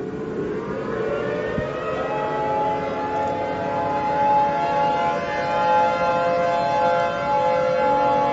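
Outdoor civil defense warning siren winding up: its pitch rises for about two seconds, then it holds a steady wail.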